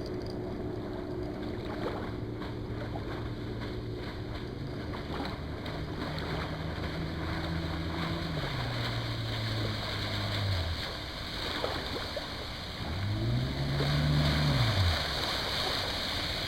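A 25 hp Johnson two-stroke outboard running on a small aluminum boat. Its pitch steps up about four seconds in, drops back around eight seconds and fades out near eleven seconds. A brief swell that rises and falls in pitch comes near the end and is the loudest part. Wind and water noise run underneath.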